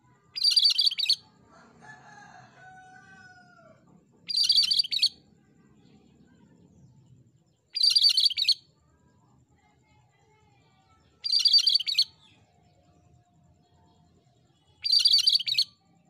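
Cucak kerinci bulbul singing five short, high-pitched, rapid stuttering phrases, about one every three and a half seconds. Between the first two phrases comes a fainter, lower call with drawn-out falling glides.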